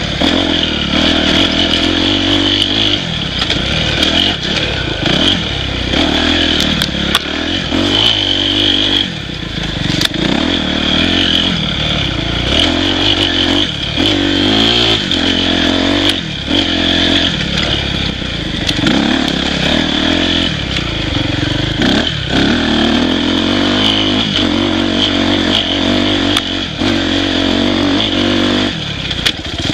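Dirt bike engine riding along a trail, the throttle opening and easing off every few seconds, with occasional sharp knocks and clatter from the bike over the rough ground.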